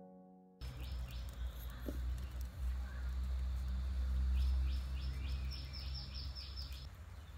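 Outdoor ambience with a steady low rumble and a bird chirping, ending in a quick run of about eight high chirps near the end.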